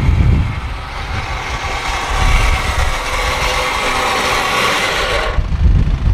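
Electric winch motor whining under load over the low rumble of an idling off-road vehicle's engine, pulling a vehicle out of mud. The winch whine cuts off suddenly about five seconds in, leaving the engine running.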